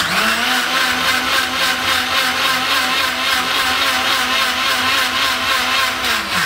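Electric mixer grinder (mixie) motor running at full speed, blending oils in its jar. It spins up sharply at the start, runs with a steady whine and starts to wind down near the end.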